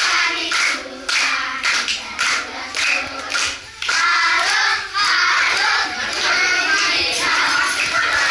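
A group of children singing a game song together, clapping in time at about two claps a second. About four seconds in the clapping gives way to louder, continuous group singing and shouting as the game gets moving.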